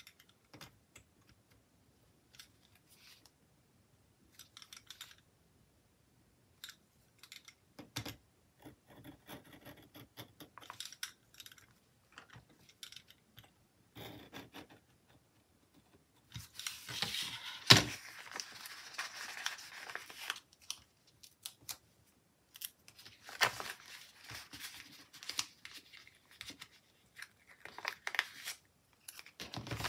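Paper sticker sheet being handled: faint ticks and rustles as a marker pen works on the sheet, then, from about halfway, longer stretches of papery rustling and a sticker being peeled, with one sharp tap a little past the middle as the loudest sound.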